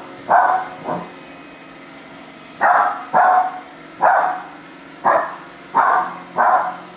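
A dog barking in short single barks, about eight of them: two near the start, then after a pause a run of six roughly every half second to second.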